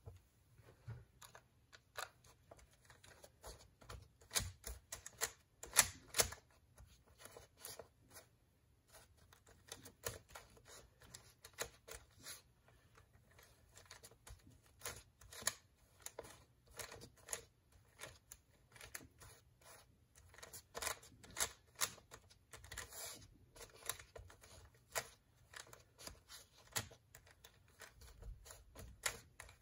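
MGC V1 3x3 speed cube being turned with bare feet: an irregular run of quick plastic clicks and clacks as the layers turn, with brief pauses between bursts of turns.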